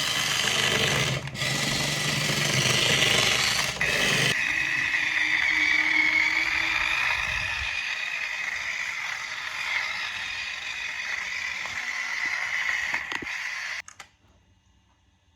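Small electric motor and plastic gears of a toy RC car whirring: a loud, rough whir for about four seconds, then a steadier, quieter whine that cuts off suddenly near the end.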